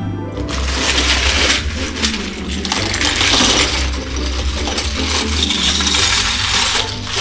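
Loose LEGO pieces pouring out of a plastic bag and clattering onto a plastic baseplate: a continuous rattle of small plastic bricks tumbling and bouncing.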